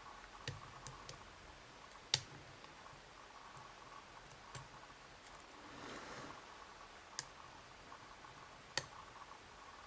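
Small, sharp metallic clicks from a dimple flag pick working the pins inside a YATO dimple lock, scattered and irregular, about seven in all, the loudest about two seconds in.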